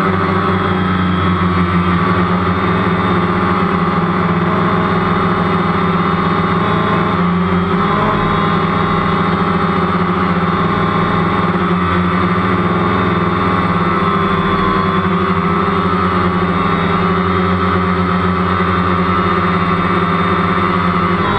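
DJI Phantom quadcopter's motors and propellers buzzing steadily, heard from the drone's onboard camera, the pitch wavering briefly now and then as it manoeuvres.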